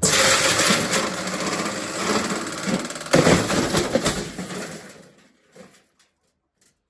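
Candy washing machine being run to destruction, its drum and cabinet violently banging and rattling at speed, with a loud crash about three seconds in; the racket dies away about five seconds in.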